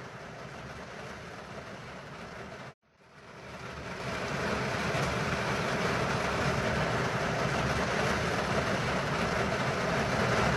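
Steady rushing noise of water in a rain and flash-flood scene. It cuts out abruptly just under three seconds in, then swells back and carries on louder.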